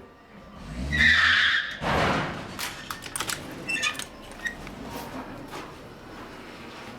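A car striking a garage door: a loud rushing noise about a second in, a heavy crash at about two seconds, then scattered rattles and clicks.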